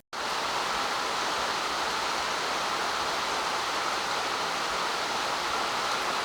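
A steady, even rushing hiss, like running water or rain, that starts abruptly at a cut and holds level throughout, with no distinct strikes or tones.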